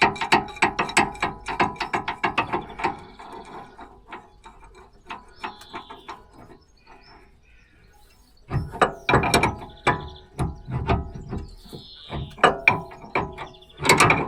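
Hand socket ratchet clicking in quick runs as a nut is turned on the car's suspension, stopping and starting three times.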